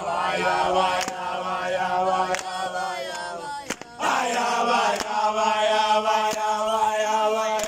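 A group of young men singing a chant together in unaccompanied voices, holding long sung lines, with a short break a little under halfway before the chorus comes back in.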